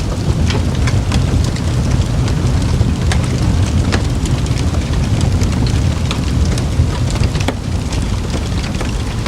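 Campfire burning: a steady low rumble of the flames with frequent sharp crackles and pops from the burning wood, several a second, a few louder ones standing out.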